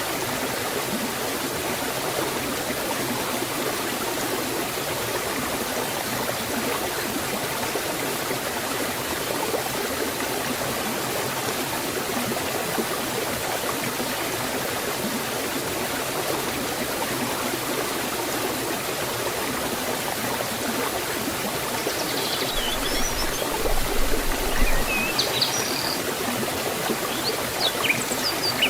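Water rushing steadily down a forest stream and small waterfall, an even, unbroken wash. Near the end, a few short, high bird chirps join in.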